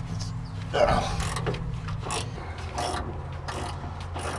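Socket ratchet clicking in short, uneven strokes as a tight half-inch bolt on a radiator's top bracket is worked loose, over a steady low hum.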